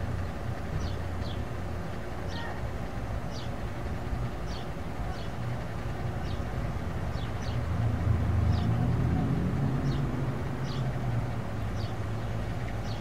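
Low, steady rumble of an idling diesel pickup engine, swelling a little about eight seconds in. Over it, short high bird chirps come roughly once a second.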